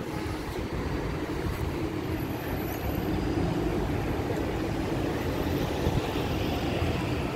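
Steady city background noise, mostly a low rumble of traffic.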